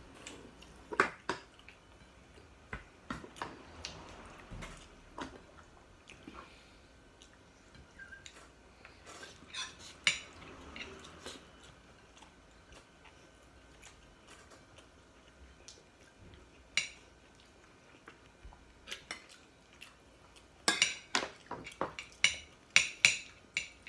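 Spoon and fork clinking and scraping against ceramic plates and bowls during a meal: scattered clinks, sparse in the middle, with a busier run of clinks near the end.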